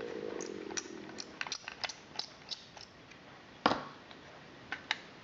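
Small parts of a View-Master Model D viewer being handled and worked loose: a run of light clicks and taps, with one louder knock about three and a half seconds in.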